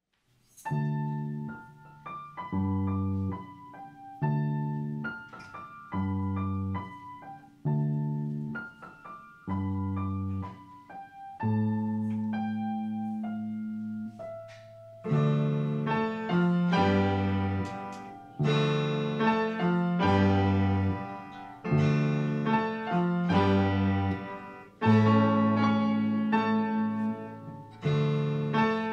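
Piano music: a slow tune over low notes struck about every one and a half to two seconds, growing fuller and louder about halfway through.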